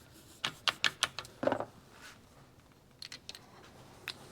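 A handful of light clicks and taps of small engine parts being handled and fitted into a motorcycle engine case during clutch and shift-shaft assembly. A quick cluster comes in the first second and a half, the strongest with a duller knock, then a few fainter clicks and one more near the end.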